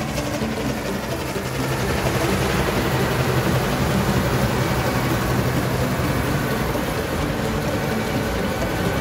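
Case IH 1480 Axial-Flow combine harvester running at harvesting speed: a steady engine hum under the continuous rush of its threshing machinery and the straw and chaff spilling out of the rear.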